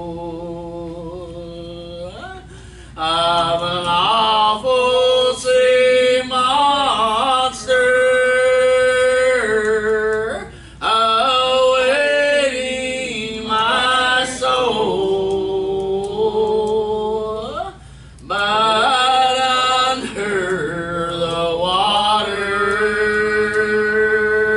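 Gospel hymn singing, with long held notes in phrases and short breaks between the lines.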